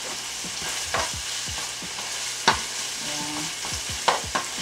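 Chicken, onion and garlic sizzling in a hot oiled nonstick frying pan as they are stir-fried with a silicone spatula. The sizzle holds steady, with three sharper taps of the spatula against the pan.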